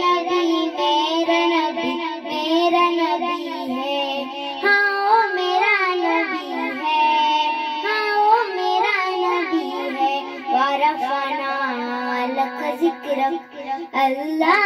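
A young girl singing a naat into a microphone: a melodic vocal line of long, wavering, ornamented notes.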